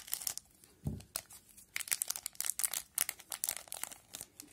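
Hockey card pack wrapper crinkling and crackling as it is pulled open and the cards are slid out, in quick irregular crackles, with one dull thump about a second in.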